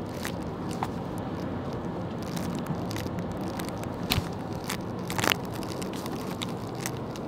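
Low steady rumble of a car being driven, with irregular clicks and crackles over it; the two loudest come about four and five seconds in.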